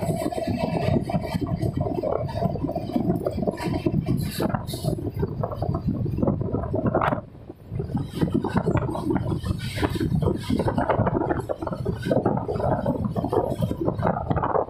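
Running noise of an Indian Railways express train heard from an open door of a moving coach: a continuous rumble and rattle of the wheels on the track, with wind buffeting the microphone. The noise dips briefly about seven seconds in.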